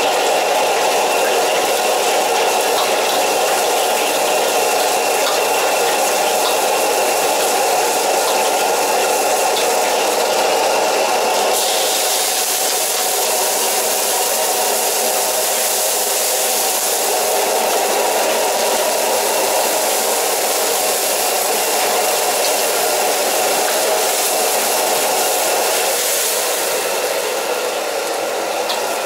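Commercial gas wok burner running with a steady rush under a carbon-steel wok while aromatics fry in oil. About a third of the way in, a louder, brighter sizzling hiss joins as liquid goes into the hot wok and bubbles.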